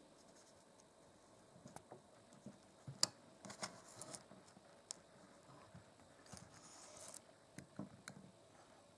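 Faint scattered clicks and scrapes of small hard objects being handled, with one sharp click about three seconds in and short clusters of scraping just after it and again around seven seconds.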